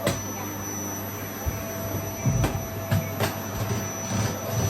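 Vacuum cleaner running steadily, with a high motor whine over a low hum, and a few sharp knocks partway through.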